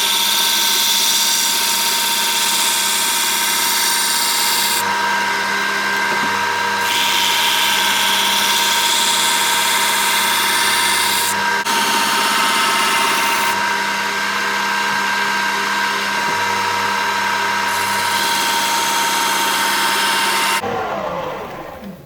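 Belt grinder running with a coarse 36-grit belt, a steel knife blade held in a bevel jig pressed to the belt in several passes: a harsh grinding hiss comes and goes over the steady motor whine. Near the end the motor is switched off and spins down, its pitch falling.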